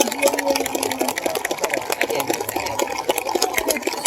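Murmur of a spectator crowd under a dense, irregular patter of sharp clicks and taps.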